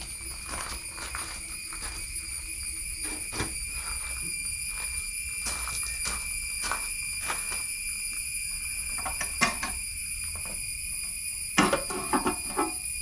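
Scattered clicks and knocks of hands and tools working on a Lambretta scooter's bodywork, with a sharp knock about two-thirds of the way through and a quick cluster of clicks near the end. A steady high-pitched whine runs underneath.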